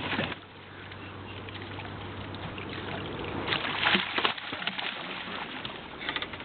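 Water sloshing around a small fishing boat as a jugline with a gar on it is hauled in, over a low steady hum, with a brief burst of noise about three and a half seconds in.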